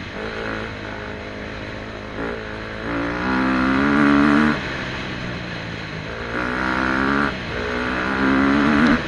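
KTM 250 SX-F's single-cylinder four-stroke engine being ridden hard. The throttle opens in repeated bursts: a short blip about two seconds in, then three longer pulls in which the pitch climbs. Between the bursts the engine falls back off the throttle.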